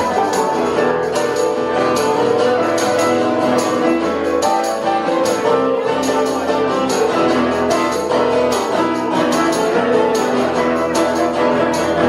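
Live dance music with a steady beat and jingling percussion.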